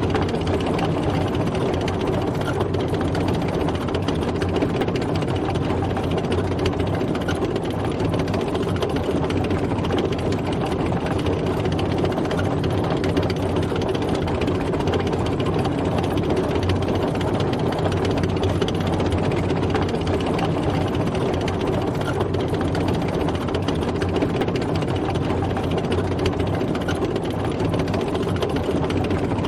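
Tank driving: its heavy engine running steadily under a dense mechanical clatter, with no change in speed or load.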